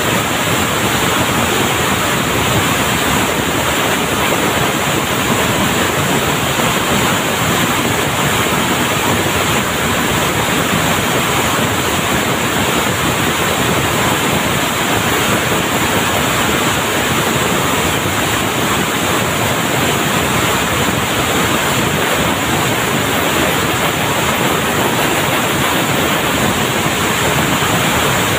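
Loud, steady machinery din of a textile mill: an even hiss-like noise that does not change, with no separate knocks or beats standing out.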